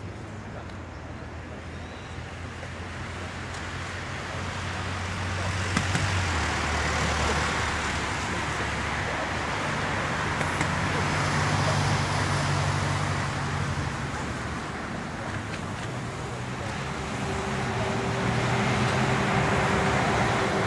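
Airbus A330-200F jet engines during the landing rollout: a steady rushing noise that builds over the first six seconds, with low engine hums that drop in pitch about six seconds in and shift again around ten seconds.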